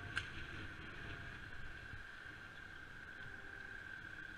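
Faint wind and rolling noise from a bicycle riding along an asphalt road, picked up by a camera on the bike, with a steady high whine and a single click just after the start.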